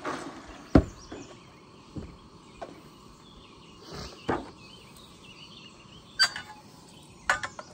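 Scattered sharp knocks and clatters of camp gear being handled in a plastic cooler, the loudest about a second in and a quick cluster near the end, over a steady faint outdoor background with birds chirping.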